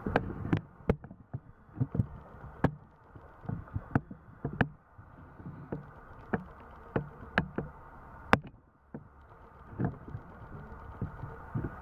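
Handling noise from a handheld microphone: irregular sharp knocks and taps, roughly a dozen or more, over low rumbling thumps, with no speech.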